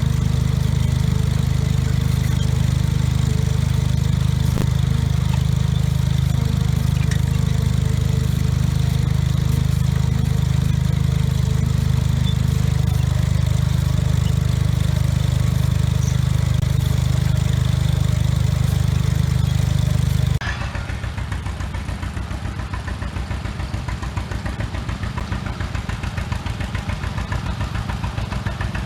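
Garden tractor engine running steadily. About two-thirds of the way in, it abruptly gives way to a quieter, evenly pulsing idle.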